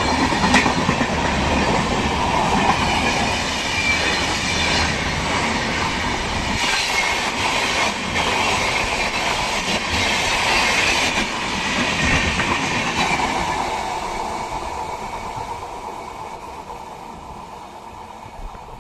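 Howrah–Barmer Superfast Express passing at speed, its coach wheels clattering over the rail joints. The clatter holds steady, then fades gradually over the last five or six seconds as the train draws away.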